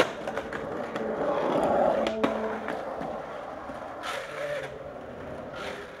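Skateboard landing hard on asphalt after an ollie, then its wheels rolling over rough street pavement, the rolling swelling and fading. A sharp clack about two seconds in.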